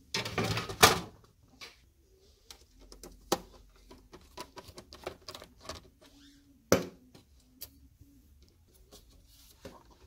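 Handling and unscrewing of an Xbox One X's metal inner shield: a loud metallic rattle in the first second, then a scattered run of small clicks and taps as a screwdriver works the screws, with one sharp click about two-thirds through.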